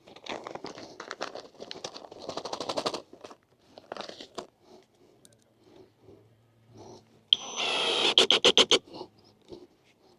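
Crinkling, scraping handling noise of parts and packaging, then a sudden loud run of rapid sharp clicks about seven seconds in that lasts over a second.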